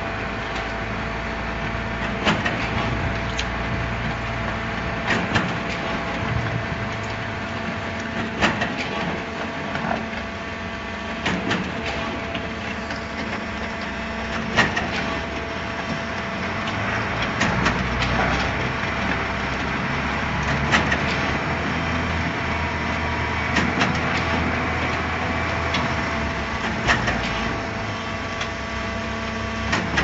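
Vertical concrete mixer pump running: a steady machine hum with a sharp knock about every three seconds.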